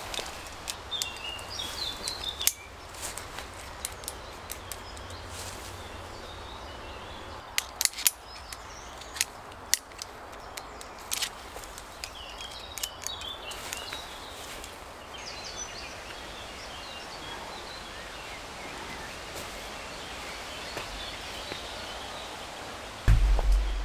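Sharp metallic clicks and clinks of screw-gate carabiners and rope being handled while a rope tensioning system is rigged, scattered through, with birds chirping in the background. A heavy low thump comes near the end.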